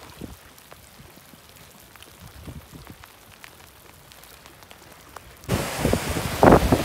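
Quiet outdoor background with faint scattered ticks. About five and a half seconds in it jumps suddenly to a louder steady hiss, with a gust of wind buffeting the microphone near the end.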